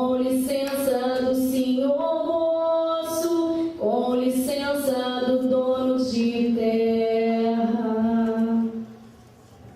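A single unaccompanied voice singing a slow chant in long held notes, with no instruments. The singing stops near the end.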